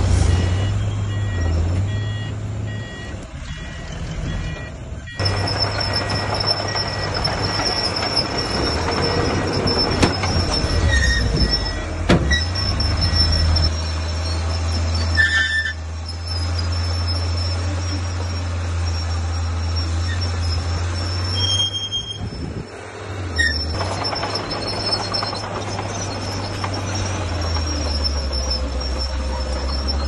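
Heavy earthmoving machinery, a bulldozer and dump truck, with diesel engines running steadily and a high continuous squeal over the low drone. A beeping alarm repeats during the first few seconds.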